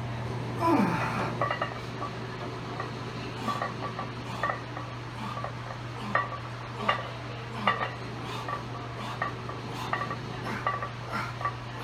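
Iron weight plates on a loaded barbell clinking and rattling in short metallic knocks as the bar is pressed up and down through bench-press reps, roughly one clink every second, over a steady low hum.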